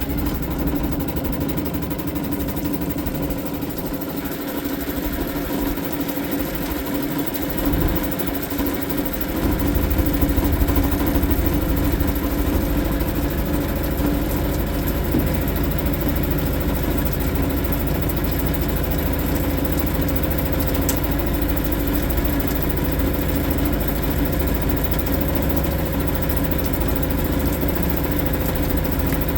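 Suzuki 2.5 HP DF single-cylinder four-stroke outboard running steadily after a warm start without choke. The sound grows a little fuller and louder about nine seconds in, then holds steady.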